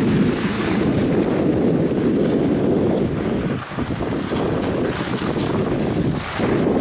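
Wind rushing over the microphone of a camera carried by a moving skier, a steady low rumble.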